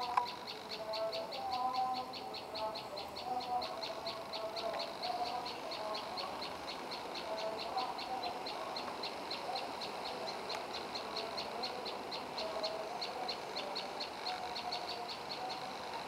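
Prenjak lumut songbird calling a rapid, even series of high, sharp notes, about five a second without a break, over fainter, lower warbling notes.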